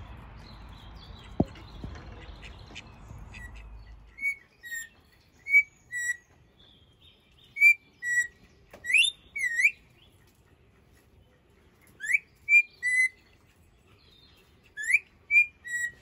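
Crimson rosella whistling: clear, ringing notes, some sweeping upward, in four short bursts of two to four notes each. Before the whistling starts, about four seconds of steady outdoor background noise with a single sharp click.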